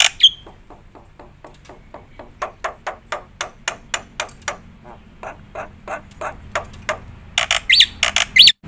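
Black-winged starling (jalak putih) in full song. A loud harsh call opens the passage, followed by a long run of quick, evenly repeated clicking notes, about three to four a second, that slowly grow louder. Loud harsh calls come back near the end, with a brief dropout just before it finishes.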